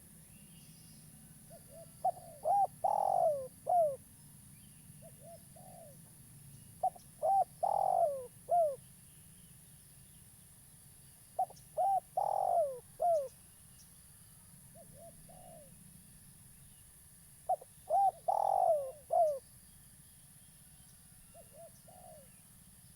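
Spotted dove cooing its song over and over: four full phrases about five to six seconds apart, each a few short coos around one longer falling coo, with quieter pairs of short coos between them.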